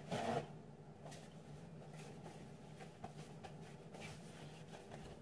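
A sheet of paper towel pulled and torn off the roll with a short rustle, followed by faint rustling of the paper over a low steady hum.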